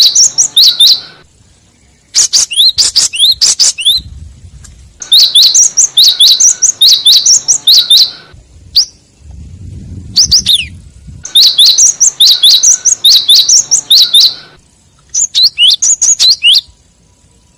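Gelatik wingko (cinereous tit, gelatik batu) lure call: fast runs of high, sharp chirps in bursts of one to three seconds with short pauses between them. A low rumble sounds twice in the pauses.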